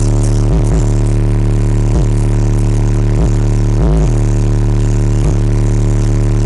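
Six Skar Audio 15-inch subwoofers in a 4th-order enclosure playing a sustained, very loud bass note from a song. The note breaks briefly several times, most markedly about four seconds in.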